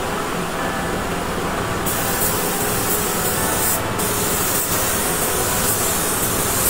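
Compressed air hissing from a spray gun, growing stronger about two seconds in and cut off briefly just before four seconds.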